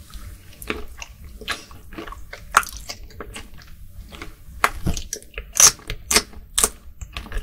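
Close-miked biting and chewing of cooked, peeled shrimp: irregular wet mouth clicks and bites, loudest in the second half.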